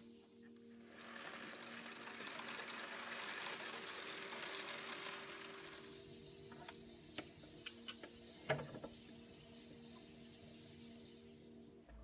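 Rena BioCube 50 aquarium's built-in pump running with a steady hum while water rushes and gurgles through the rear filter chamber for several seconds, then settles. A few sharp clicks follow, the loudest about eight and a half seconds in.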